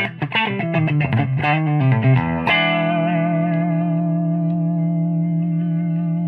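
Electric guitar played through a Scholz Rockman Compressor module into a Bogner XTC tube amp and a Mesa 1x12 cabinet. It plays a quick run of notes, then about two and a half seconds in lets one chord ring. The chord holds at an even level with a slight waver and does not fade: the compressor's sustain.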